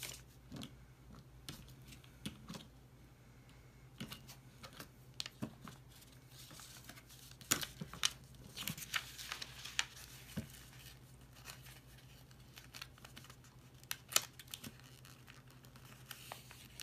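A square of wrapping paper being folded by hand, its corners brought in to the centre and creased: soft rustling and crinkling with scattered crisp snaps of paper, busiest about halfway through, and one sharp snap near the end.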